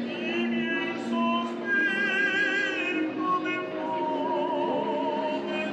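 Male street opera singer singing an operatic line, long held notes with wide vibrato over steady lower sustained notes.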